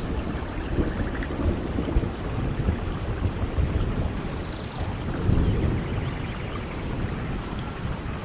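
Steady rain falling, with low thunder rumbling underneath that swells about five seconds in.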